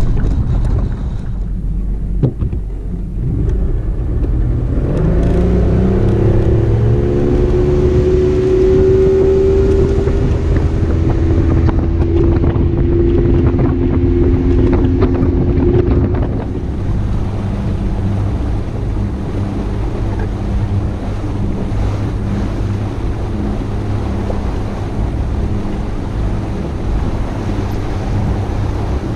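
Low rumble of a boat being towed on its trailer, then a boat motor running: its pitch rises about five seconds in and holds, then drops to a steady lower hum after about sixteen seconds.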